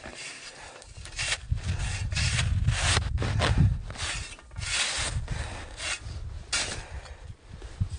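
Small snow shovel scraping and digging into packed snow in a series of uneven, gritty strokes, burying snow stakes to anchor the tent, with a low wind rumble on the microphone.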